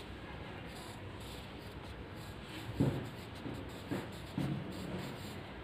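Pencil scratching softly on notebook paper as a word is written by hand.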